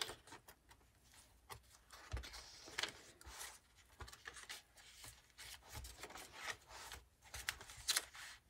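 Pages of a handmade junk journal being turned and handled: faint paper rustling and rubbing, broken by a few soft thumps.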